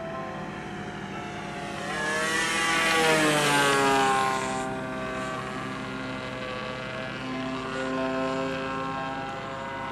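Radio-controlled YAK 54 aerobatic model plane's motor and propeller droning as it flies over. The sound swells about two seconds in, is loudest around three to four seconds as the pitch falls while it passes close, then settles into a steadier, quieter drone as it flies off.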